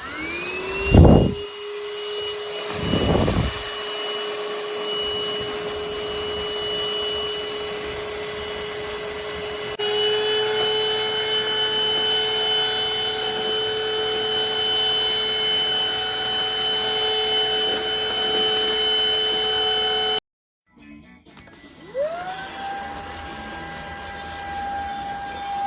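Stanew 22.2 V cordless stick vacuum switched on. Its motor spins up to a steady whine, with two thumps in the first few seconds. About ten seconds in it steps up louder and slightly higher, as at a higher power setting. It cuts off about twenty seconds in, then starts again a couple of seconds later at a higher pitch.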